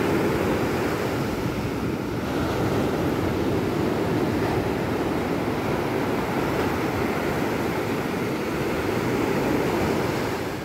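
Steady rushing of sea surf and wind, with wind buffeting the microphone. It cuts off suddenly near the end.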